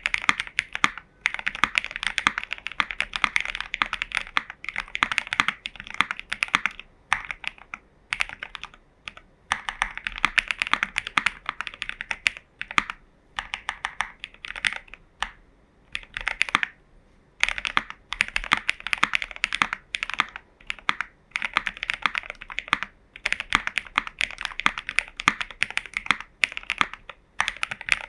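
Typing on a JerPlanet J1800 custom mechanical keyboard with lubed, filmed switches (Cherry housings with NK Cream linear stems) and a tape mod. It is a fast run of key clacks in bursts of several seconds, with short pauses about a second in, around seven to nine seconds, and near the middle and end.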